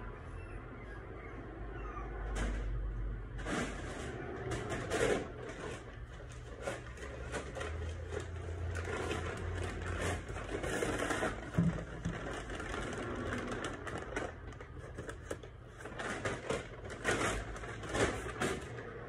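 Irregular clicks, knocks and rustling over a low steady rumble, with clusters of sharper knocks near the start, in the middle and near the end.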